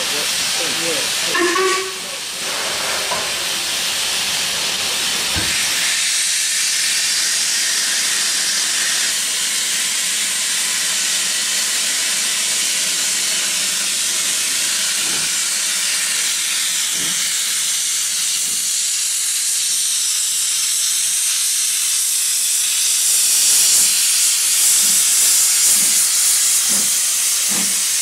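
Steam hissing from the open cylinder drain cocks of LMS Ivatt Class 4MT 2-6-0 No. 43106 as the locomotive starts away, clearing condensed water from its cylinders. Soft exhaust beats begin to come through the hiss in the later part and quicken as it gets under way.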